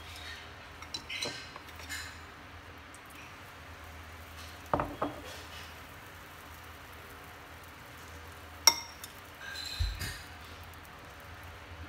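A spoon clinking against a glass mixing bowl and a frying pan as pancake batter is scooped and poured. A handful of short clinks: a pair about five seconds in and a sharp single one near nine seconds.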